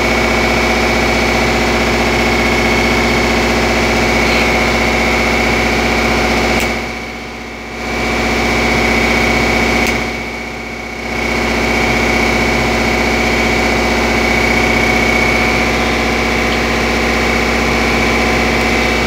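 A motor running steadily: a constant hum with a high whine over it. The sound drops away twice briefly, about seven and ten seconds in.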